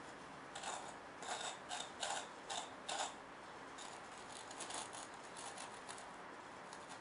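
A run of short, scratchy scrapes, about eight in the first three seconds, then fainter scattered rubbing and ticks. These come from a small wooden template being shifted and pressed down onto a gritty scenery base of scattered ground cover.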